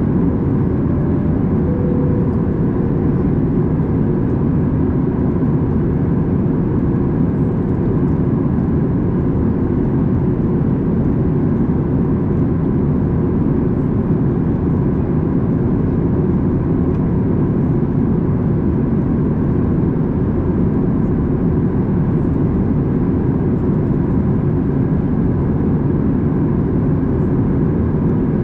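Steady cabin noise of a Boeing 737 MAX 8 airliner in flight, heard from a window seat: an even, low rush of airflow and its CFM LEAP-1B turbofan engines, with a faint steady hum above it.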